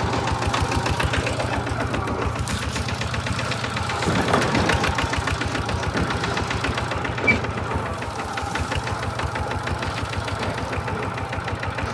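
Single-cylinder diesel engine of a two-wheel walking tractor chugging steadily with a fast, even beat as it pulls a loaded trailer uphill.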